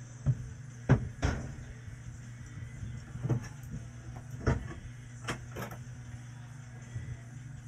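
A scattering of short, sharp knocks and clatters from things being picked up and set down on a workbench, over a steady low hum.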